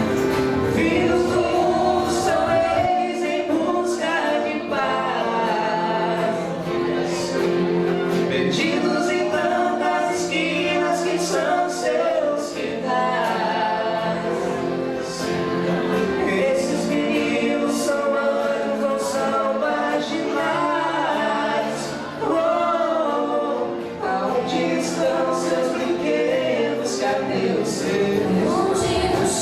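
A group of voices singing together in chorus over instrumental accompaniment, with held notes under the moving melody; the deepest bass drops out about three seconds in.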